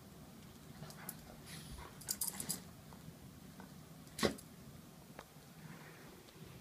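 Yellow Labrador retriever moving about, its metal collar tags clinking: a quick run of clinks about two seconds in, then one sharper, louder clink a couple of seconds later.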